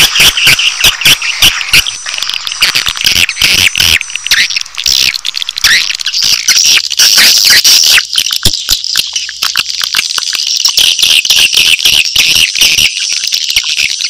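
Recorded swiftlet chick calls, the 'suara inap' roosting call used to lure swiftlets into a swiftlet house. A loud, continuous chorus of rapid, high-pitched chirping, many chirps a second.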